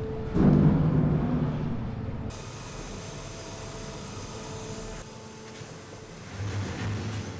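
Hydraulic scrap-metal shear and baler machinery working. A loud low-pitched strain starts about half a second in and fades over the next second and a half, then gives way to steadier, quieter machine noise that changes abruptly twice.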